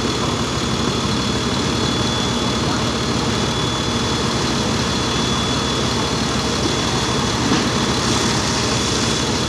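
Fire truck's heavy diesel engine running steadily at constant speed while pumping water to the aerial ladder's stream, with a constant high whine over the low engine pulse.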